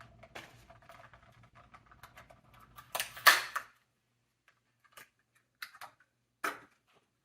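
Hands unpacking a small 3D-printed miniature football helmet from its packaging: soft rustling, a brief loud rustle about three seconds in, then a few sharp clicks of handling.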